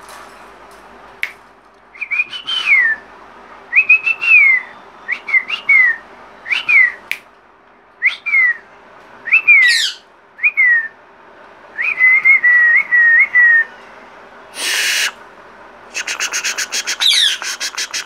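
Young rose-ringed (Indian ringneck) parakeets calling: a run of about eight short whistles, each sliding downward in pitch, then a wavering trilled whistle. Near the end come a harsh squawk and a rapid raspy chatter.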